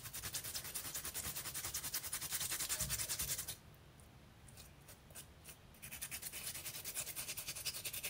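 Fresh ginger root rasped back and forth on a small stainless-steel ginger grater: a quick, even scraping of several strokes a second. It pauses for about two seconds midway, then starts again.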